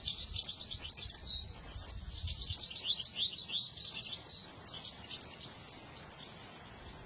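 Bird song: a dense, rapid stream of high chirps and twitters that grows fainter over the last two seconds.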